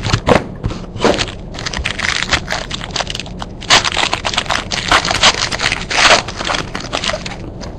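A trading-card pack's foil wrapper being torn open and crinkled by hand: a run of crackles and scrapes, louder in clusters around the middle.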